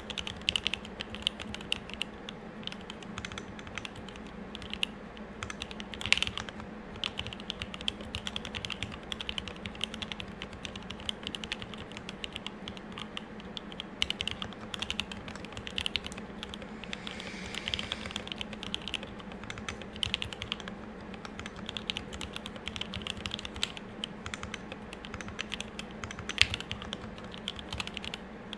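Continuous typing on a custom M65-A mechanical keyboard with lubed Tealios 67g linear switches, GMK keycaps and a brass plate: a steady, dense stream of key clacks without pauses.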